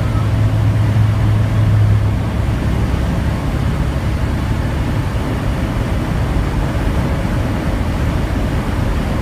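Inside a semi-truck cab at highway speed: the steady drone of the truck's Detroit diesel engine mixed with road and wind noise. A low engine hum stands out for the first two seconds, then blends into an even rumble.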